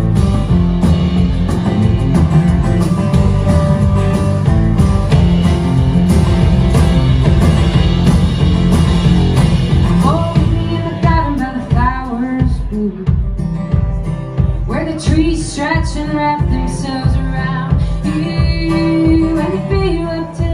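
Live acoustic folk band playing: strummed acoustic guitar, plucked upright bass and drums, instrumental at first. A lead vocal comes in about halfway through, over a steady beat.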